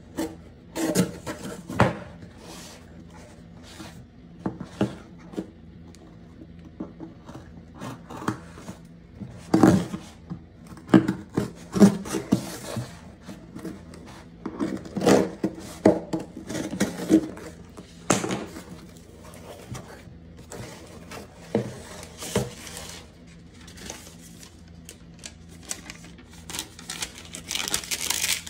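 A kitchen knife slitting and scraping through a cardboard shipping box, with irregular rubs, scrapes and knocks as the box is handled on a wooden table. Near the end there is a denser spell of rustling as paper packing is pulled out.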